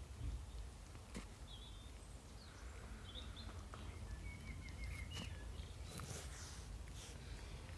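Faint short bird chirps, a few quick notes at a time, over a steady low outdoor rumble, with a few sharp clicks in between.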